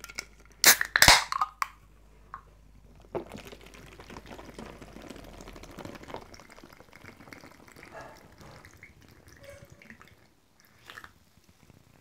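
A can of Welch's strawberry soda cracked open with two sharp pops and a short hiss about a second in. Then the fizzy soda is poured through a plastic funnel into a plastic bottle packed with ice: a steady fizzing pour that dies away about ten seconds in.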